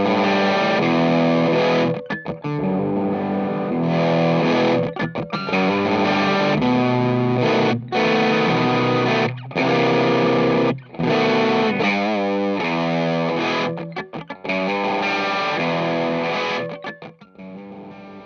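Electric guitar, a 1998 Dan Armstrong Ampeg, played through a Fuzzrocious Dark Driving low-gain overdrive pedal. It plays overdriven chords in short phrases with brief breaks between them, and goes quieter near the end.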